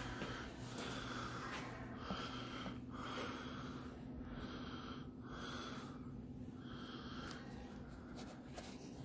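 A person's breathing close to the microphone, soft puffs in and out about once a second, over a steady low hum.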